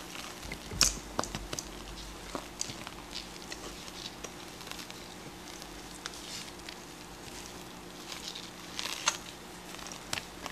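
Grape-Nuts cereal being stirred into a thick cream ice cream base in a bowl: scattered light clicks and soft squishing at an uneven pace, with a sharper click about a second in and another near the end.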